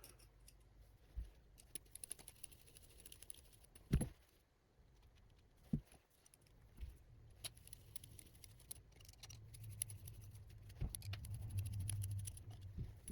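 Faint scattered clicks and taps of small screws and tools being handled while an FPV quadcopter's flight stack is put back together, with a couple of sharper knocks and a faint low rubbing in the last few seconds.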